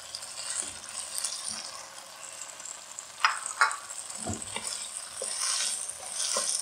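Chicken, green capsicum and onion sizzling in a non-stick wok while a wooden spatula stirs them, with a few sharp knocks and scrapes of the spatula against the pan a little past halfway.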